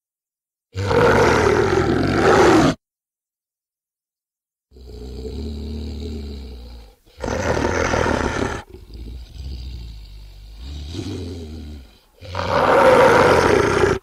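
A string of separate roar and growl sound effects for a cartoon alligator character. A loud roar comes about a second in, then a lower, quieter growl, a second loud roar, a run of quieter grunting growls, and a final loud roar near the end.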